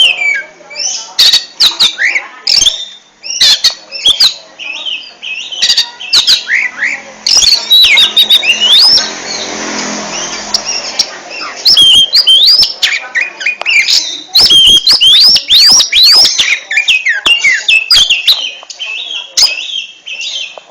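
Oriental magpie-robin (kacer) singing loudly in the rapid, stuttering 'ngentrok' style: quick runs of varied whistles and chattering notes that sweep up and down, with a harsh hissing stretch partway through.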